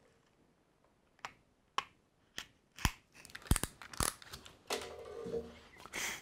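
Small scissors snipping at packaging tape: a run of sharp, separate clicks, with a short rustle about three-quarters through.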